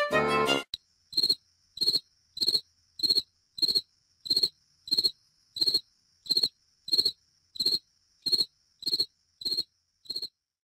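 Cricket chirping in an even rhythm, about one and a half chirps a second, as a cleanly inserted sound effect with dead silence between chirps: the 'crickets' gag for an awkward silence or an empty reception. A few bars of accordion music end just under a second in.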